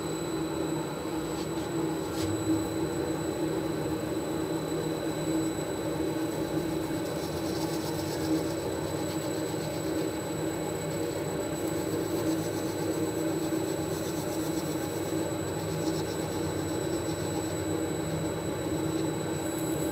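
Large wood lathe running steadily with a black walnut platter spinning on it while its bottom is hand-sanded, a constant machine hum with a thin high whine over it.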